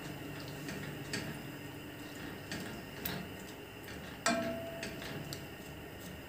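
Wooden spatula stirring pieces of chicken breast in a frying pan: scattered clicks and knocks of wood against the pan, the loudest a ringing knock about four seconds in.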